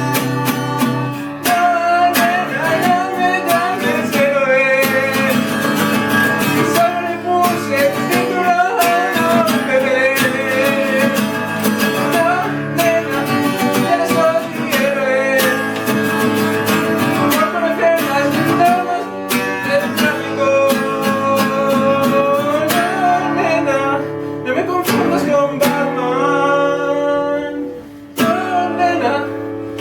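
Acoustic guitar strummed and picked through an instrumental stretch of a song.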